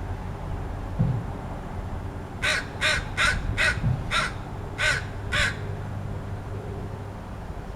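Crow giving a quick run of seven short, harsh calls, starting about two and a half seconds in, over a steady low rumble. A low thump sounds about a second in.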